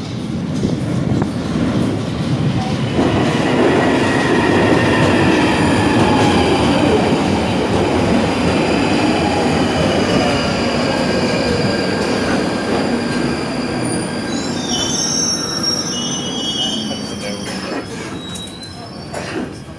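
London Underground Northern Line tube train running into the platform and braking: a loud rumble with a motor whine that falls in pitch as it slows, and high wheel and brake squeals near the end as it comes to a stop.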